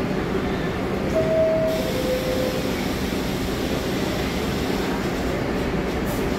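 A New York City subway train standing in the station with its equipment humming steadily. About a second in, a two-tone door chime sounds, high then lower, and the doors slide shut.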